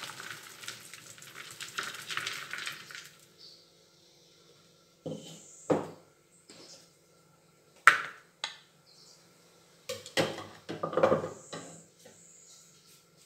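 Chopped nuts and seeds pouring and rattling out of a plastic food processor bowl into a plastic mixing bowl for about three seconds. Then scattered knocks and short scrapes as the chopping blade is scraped and tapped against the bowls.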